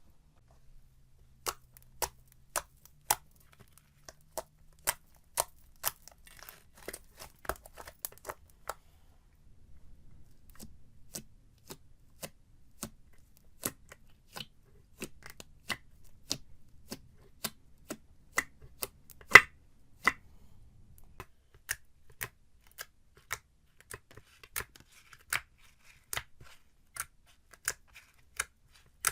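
Slime being handled for ASMR: a run of short, sharp clicks or snips, about two a second, with one much louder click about two-thirds of the way through.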